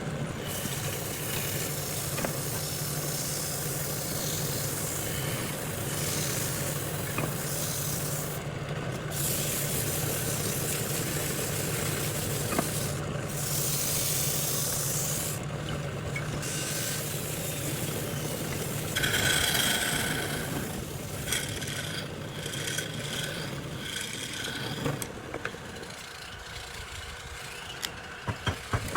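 A woodworking power tool's motor running steadily while something rubs and rasps against wood, with a brief high squeal about two-thirds through. The motor stops near the end, followed by a few sharp clicks.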